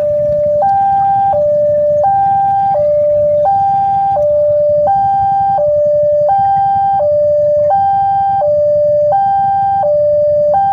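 Railway level-crossing alarm siren sounding a loud two-tone hi-lo warning, switching between a higher and a lower tone about every 0.7 seconds, the signal that a train is coming and the crossing gate is closing. A steady low rumble runs underneath.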